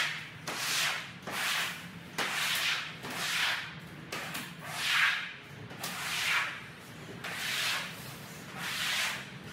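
Rubber-bladed floor squeegee pushed across wet concrete in repeated strokes, swishing water along the floor about once a second.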